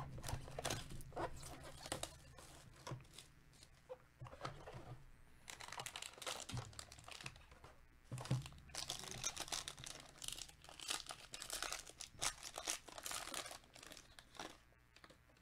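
Foil trading card pack wrapper crinkling and tearing as it is handled and opened, with scattered rustles and taps. A thump comes right at the start, and the crinkling is densest in the second half.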